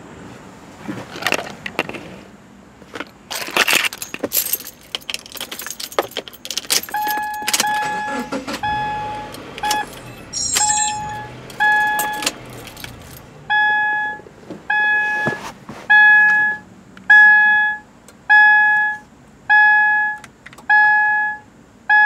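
Keys jangling with clicks and handling noise as someone settles into a car, then the car's dashboard warning chime dinging over and over, starting about a third of the way in. It is irregular at first, then steady at about one ding a second, getting louder.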